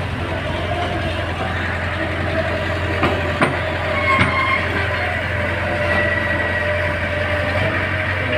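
Heavy engine of road-construction machinery running steadily, with a few sharp knocks about three to four seconds in.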